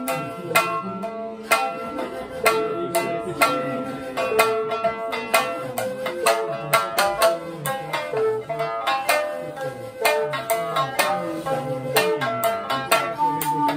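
Shamisen played with a plectrum in quick, sharp plucks, with a shakuhachi bamboo flute holding long notes over it.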